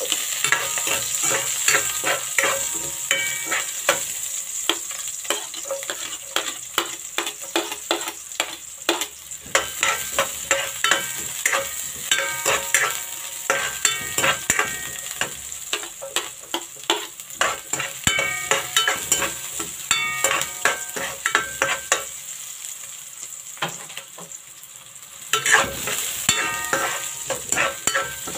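Chopped onion and garlic sizzling in hot oil in a wok, while a metal spatula scrapes and clinks against the pan in quick, irregular strokes. Near the end the stirring stops for about three seconds, leaving only the sizzle, then resumes.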